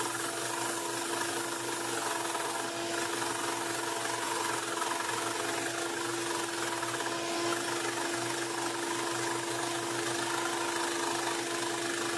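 1-inch belt sander running with a steady hum while a briar block is held against the belt, sanding a flat spot into the wood.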